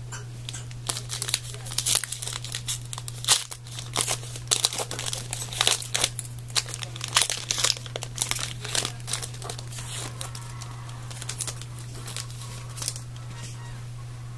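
Foil trading-card pack wrapper being torn open and crinkled by hand: a run of crackling rustles that thins out in the last few seconds.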